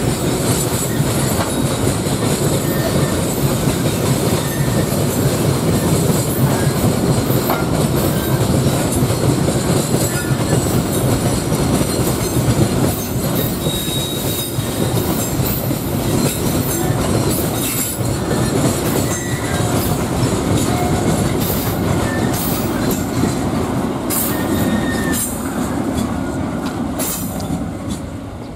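A train passing close by: steel wheels rumbling and clattering on the rails, with a few brief high wheel squeals. The noise dies away near the end.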